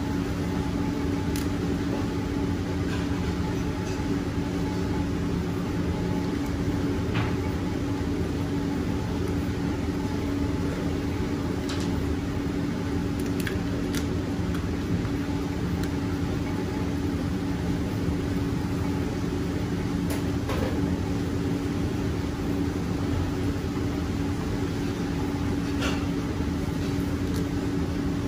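Steady machine hum of kitchen equipment, such as ventilation or refrigeration, holding one even pitch throughout. A few faint, short clicks are heard over it.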